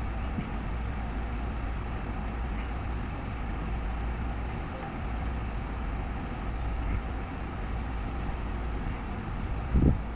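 Steady low rumble and hiss of background noise, with a single dull thump near the end.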